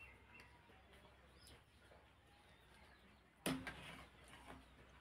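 Quiet eating and serving sounds: a plastic spoon working food on a plate, and chewing. About three and a half seconds in there is one sharp clack, followed by a couple of faint clicks.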